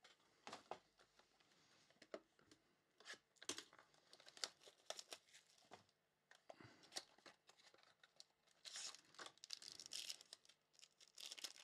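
Faint handling of a trading-card box and its foil pack wrapper: scattered clicks and rustles of cardboard, then a longer stretch of crinkling and tearing of the wrapper near the end.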